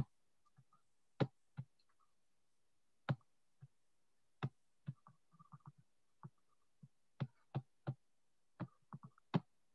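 Light, irregular clicks and taps, spaced unevenly, with a quick flurry of small ones about five seconds in.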